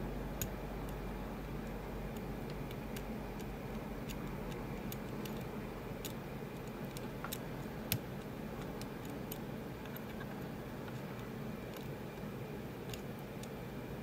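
Faint, irregular metallic clicks and ticks of a dimple pick probing and lifting the pin-in-pin pins of an HQ Lock cylinder under light tension, with one louder click about eight seconds in.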